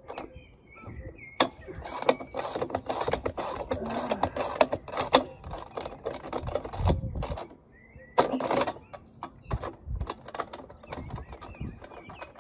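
Metal clanking and rapid clicking of hand tools working the clamp hardware on a steel antenna mast, in a dense spell from about a second and a half in and a shorter burst about eight seconds in.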